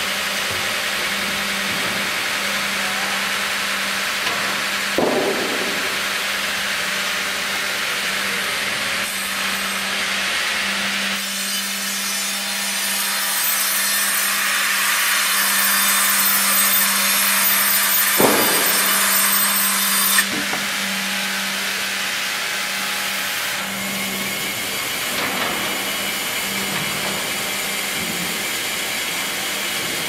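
FIMAKSAN Fi.120/HDG vertical band saw cutting through a log on the sawmill carriage, over a steady machine hum. The cut grows brighter and louder from about eleven to twenty seconds in, with a knock about five seconds in and another near eighteen seconds.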